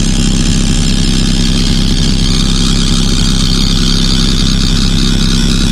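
Live electronic noise drone: a loud, steady low rumble made of many stacked low tones, with a hissing band high above it and no breaks or beats.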